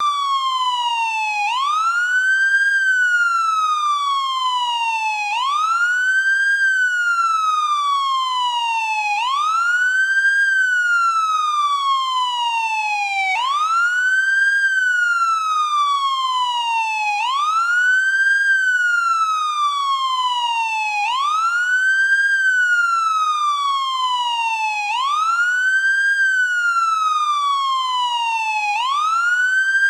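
American police car siren in wail mode: a continuous tone that rises quickly, then falls slowly, repeating about every four seconds.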